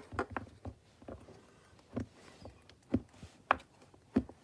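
Bubbles of a silicone Pop-It fidget toy being pressed through one at a time from its noisy side, giving a string of short, sharp pops at uneven spacing.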